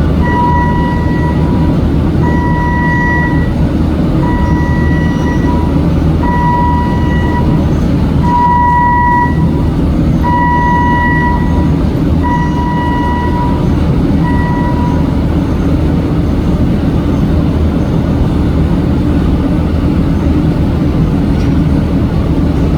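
Heavy machinery, the wood chipper's engine, running steadily and loudly, with an electronic warning beeper sounding about once every two seconds, each beep about a second long, stopping about fifteen seconds in.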